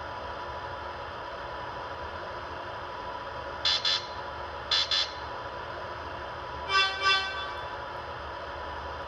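MTH R33 model subway train's onboard sound system: a steady idling hum and hiss, with two pairs of short high beeps about a second apart, then two short toots of a lower, fuller horn, the loudest sounds.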